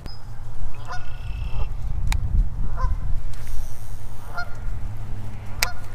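Geese honking, about five short calls roughly a second apart, over a steady low rumble.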